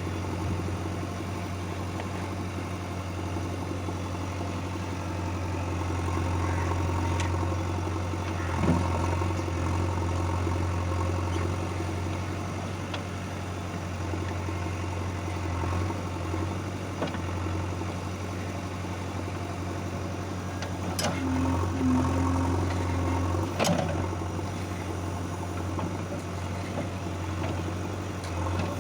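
Heavy-machinery diesel engine running steadily, with a deep low hum. A few sharp knocks stand out over it.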